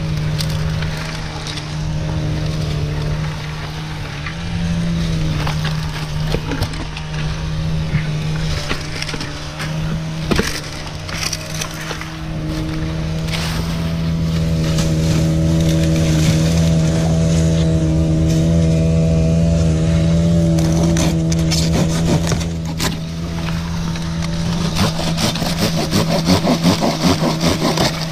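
Dry palm fronds and frond bases being cut and torn from the trunk, crackling and snapping, with a run of quick hand-saw strokes near the end. A steady engine hum runs underneath.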